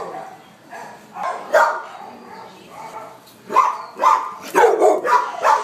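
Shelter dogs barking in concrete kennel runs: a couple of sharp barks about a second and a half in, then a rapid run of barks over the last two seconds.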